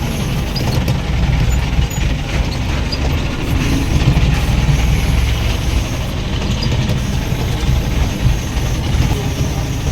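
Heavy machinery running steadily, a loud low engine rumble with mechanical rattling over it, typical of a working crane.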